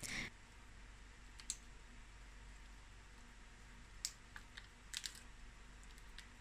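Faint, scattered clicks and crackles from a boiled crab's shell and gills being picked apart by hand over a steel plate.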